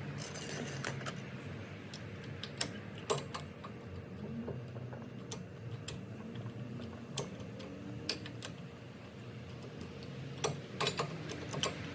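Irregular light metallic clicks and taps from hand tools and loose metal parts being handled during reassembly of a front suspension and axle.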